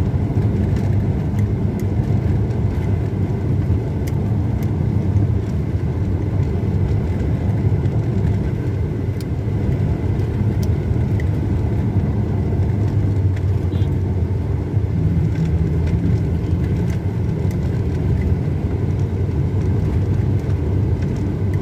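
Car driving at a steady speed, its engine and tyre rumble on a concrete road heard from inside the cabin as a constant low drone.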